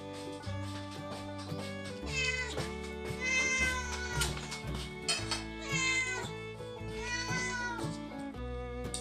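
A domestic cat meowing about four times, each a drawn-out call that rises and then falls, over background music with fiddle and guitar.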